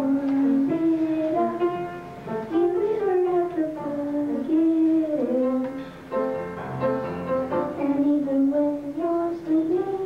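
Children singing a song with instrumental accompaniment.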